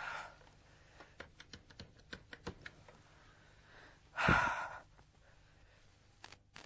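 A woman's breathing: a short breath at the start, a run of faint clicks, then a loud breath about four seconds in.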